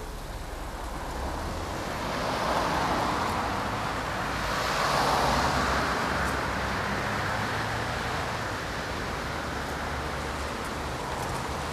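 Road traffic: cars passing on a road over a steady low rumble, with two louder passes swelling up about three and five seconds in.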